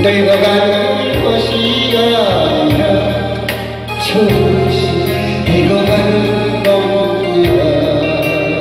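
A man singing into a microphone over instrumental accompaniment, with held bass notes that change every second or so.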